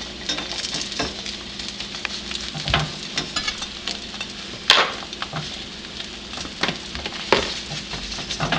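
Bread and eggs frying in butter in a pan, with a steady sizzle full of crackles. A few sharper, louder knocks stand out, about three, five and seven seconds in.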